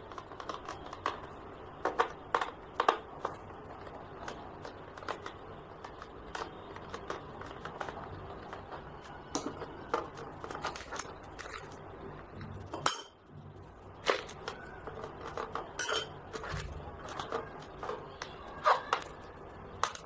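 Scattered small clicks and clinks as a screwdriver works the screws out of a Lenovo G50 laptop's plastic bottom cover and the screws are handled.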